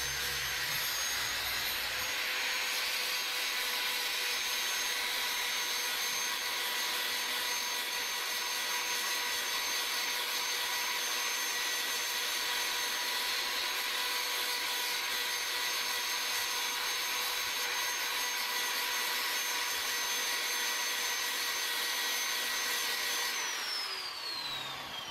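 Handheld electric drill spinning a homemade sanding attachment, sandpaper on a small wooden block on a bolt, against the inside of a charango's wooden body: a steady motor whine over the rasp of sanding. Near the end the motor stops and winds down with a falling whine.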